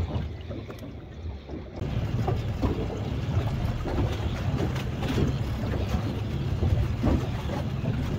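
Small fishing boat in a choppy sea, with water slapping and occasional knocks; a steady low rumble sets in about two seconds in.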